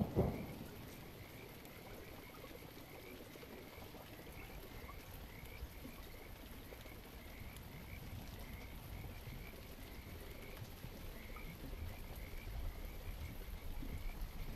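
Rain ambience with a loud thunder clap right at the start, fading into a steady low rumble and rain, over a continuous run of short, repeated chirping calls from night creatures.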